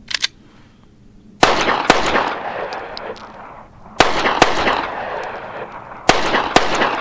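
SIG P365 9mm pistol fired in three quick double taps, six shots in all, about two and a half seconds between pairs. Each pair is followed by a long echo. A pair of quick clicks comes at the very start.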